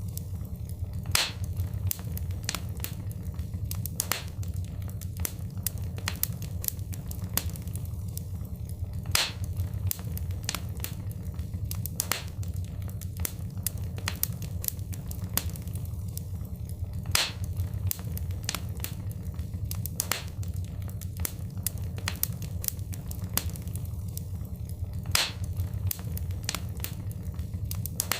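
Wood fire crackling in a fireplace: frequent sharp pops and snaps over a steady low rumble, the same pattern of pops repeating about every eight seconds.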